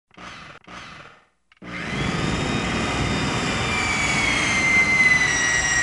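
Electric power-tool motor: two short blips, then after a brief pause it runs up to a steady whir with a whine that sags slightly in pitch.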